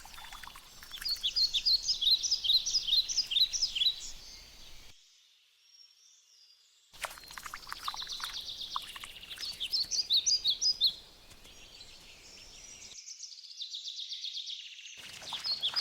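Small songbirds singing in the forest: quick runs of high chirps in several bursts, with a brief drop to near silence about five seconds in.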